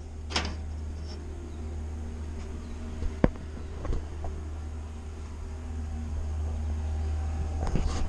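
A few light knocks and clicks as the aluminium strip and the plastic handle are handled on a workbench. The sharpest comes about three seconds in. A steady low rumble runs under them.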